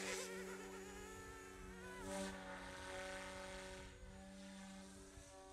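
GooSky S2 200-size RC helicopter's direct-drive brushless motors and rotors whining steadily as it climbs away, faint and fading. The pitch bends briefly about two seconds in.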